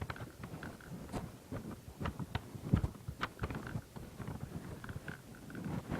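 Irregular small clicks, knocks and scrapes of a plastic airsoft rifle being handled as a silencer is screwed onto its barrel.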